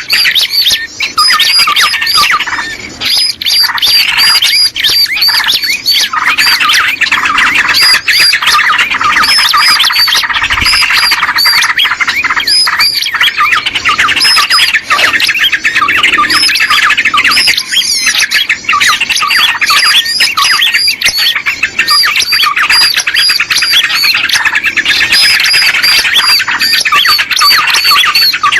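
Dense, unbroken chattering of small birds: many short, high, repeated chirps, several a second, with no pause. It is a bird-lure (pikat) call recording used to draw small birds in.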